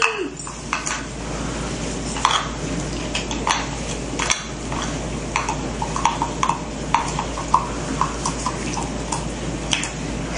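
Scattered light clicks and clinks over a steady low hum.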